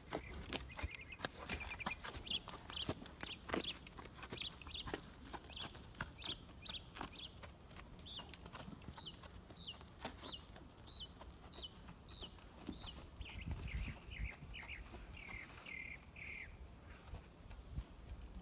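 A bird chirping: short, high, falling chirps repeated about two a second, shifting a little lower near the end, over scattered sharp clicks.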